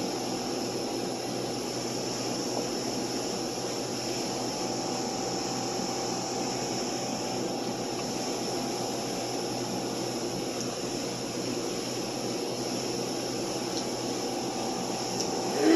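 Steady background noise: a constant hiss with a faint, even hum underneath.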